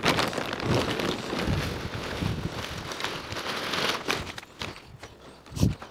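Plastic bag of topsoil crinkling and rustling as it is tipped out, with loose soil pattering onto the bare patch, then a dull thump near the end.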